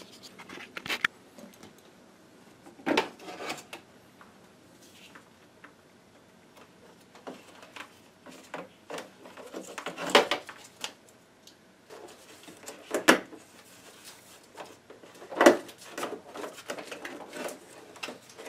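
Plastic clicks, knocks and rubbing as the LED ring of a Ninebot One electric unicycle is worked and pressed back onto its plastic side shell, with a handful of louder knocks spread through.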